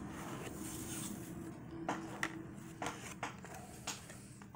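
Football trading cards handled and set down on a table: soft rustling, then several light, sharp taps in the second half.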